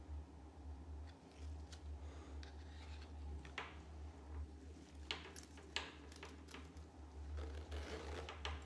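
Packaging being handled by hand: scattered clicks and short rustles, with a longer rustle near the end, over a steady low hum.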